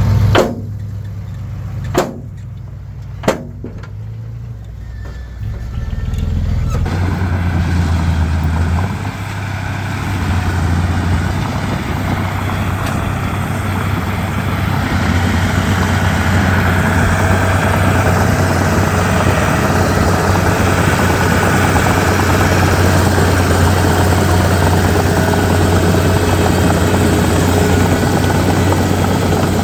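Komatsu D31P bulldozer's diesel engine running at low revs, with three sharp knocks in the first few seconds. About seven seconds in it revs up and then runs loud and steady at high revs.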